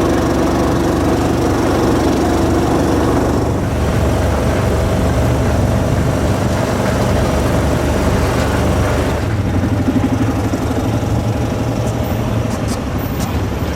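Motor vehicle engines running steadily at low revs.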